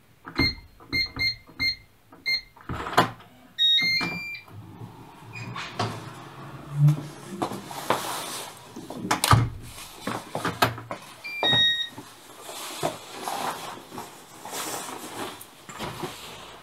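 Electronic door-lock keypad beeping four times as buttons are pressed, then a short run of rising tones as it unlocks. The door then opens and there are knocks, clicks and rustling as someone comes in, with another short electronic tone sequence later as the lock engages.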